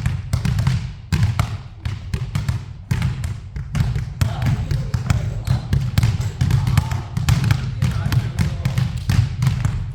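A basketball being dribbled hard and fast on a hard floor during a ball-handling drill, with several bounces a second in an uneven rhythm.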